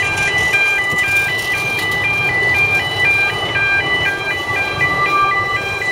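A high electronic two-note tone switching back and forth about three times a second, over the steady low rumble of a passing narrow-gauge train.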